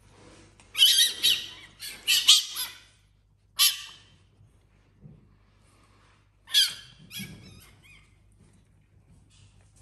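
Fennec fox giving harsh, high-pitched screeching calls in short bursts: a few close together in the first three seconds, one more near four seconds and another near seven.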